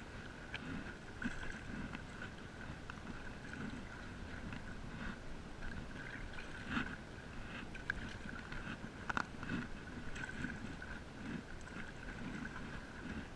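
Stand-up paddle strokes: the blade dipping and pulling through the water with splashing and gurgling about once a second, broken by a few sharp knocks, over a faint steady high whine.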